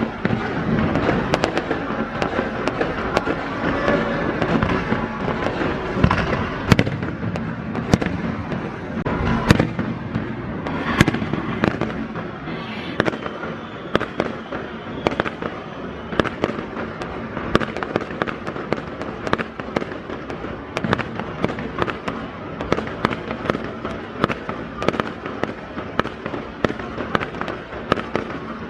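Fireworks display: a continuous run of sharp bangs over a dense crackling rumble, the bangs coming thicker and faster in the second half.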